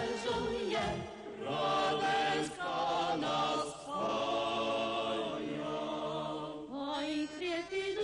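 Advertising jingle: a choir singing long held notes, several voices together.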